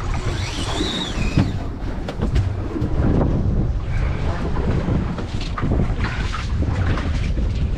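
Wind buffeting the microphone on an open fishing boat at sea, a steady low rumble. A brief high whine rises and falls in the first second or so, and light clicks are scattered through.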